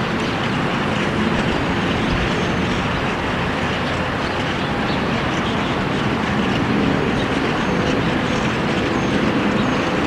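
Steady, loud rushing noise with a faint hum under it, unchanging throughout.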